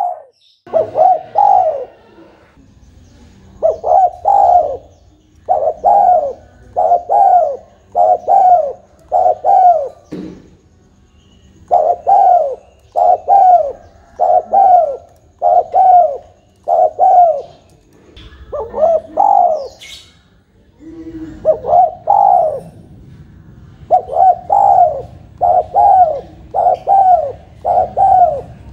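Spotted dove cooing over and over: short, arching coo phrases in quick bouts of several, broken by pauses of a second or two. It is a persistent cooing bird of the kind used as a lure call for spotted doves.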